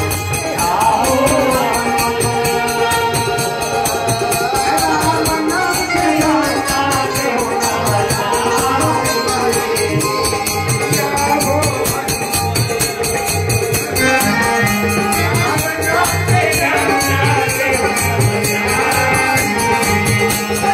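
Devotional bhajan kirtan: men singing a melody over harmonium and electronic keyboard, with a steady drum pulse and a quick rattling percussion keeping time.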